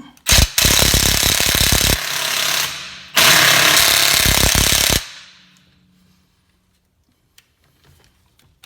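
Ryobi P261 18V One+ cordless 1/2-inch impact wrench running in reverse, rapid hammering on a car wheel's lug nut to loosen it. There are two bursts of about two seconds each, the first trailing off at a lower level before the second starts.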